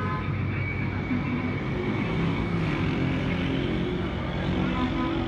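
Steady low mechanical rumble.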